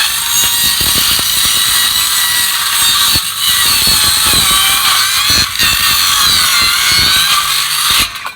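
A power tool running at high speed under load, with a wavering high whine. It briefly dips twice and stops abruptly near the end.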